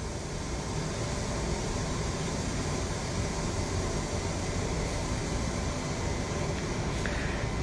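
Steady room background noise: an even hiss with a low hum and no distinct events.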